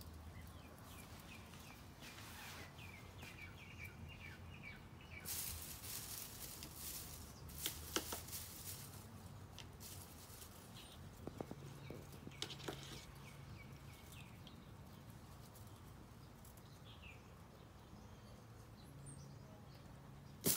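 Faint rustling of potted grass as two cats chew and bat at the stems, with a few light clicks. A quick run of small bird chirps comes a few seconds in, over a low steady hum.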